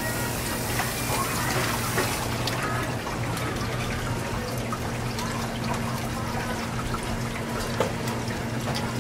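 Tap water running and splashing onto a plastic cutting board and a whole red fish as it is rinsed, loudest for about the first two and a half seconds, then softer, with wet hand-rubbing on the fish. A steady low hum runs underneath.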